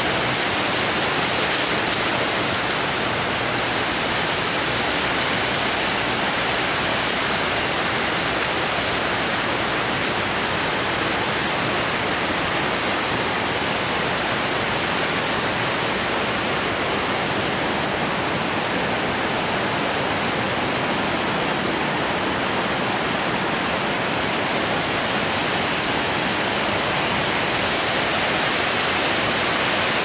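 Water pouring over a low concrete dam spillway, a steady even rush.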